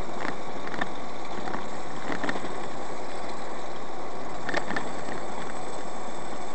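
Steady road and engine noise of a car driving at road speed, heard from inside the vehicle, with a few light knocks or ticks now and then.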